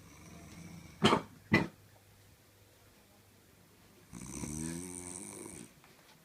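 Heavy snoring: a low drone, then two short, loud snorts about a second in, then a longer snore with a clear pitch lasting about a second and a half.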